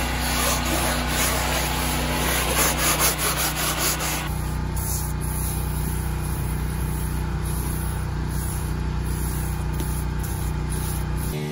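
Aerosol can of foaming upholstery cleaner spraying onto a cloth seat: a continuous hiss, brighter and fluttering for about the first four seconds, then steadier, with a steady low hum underneath.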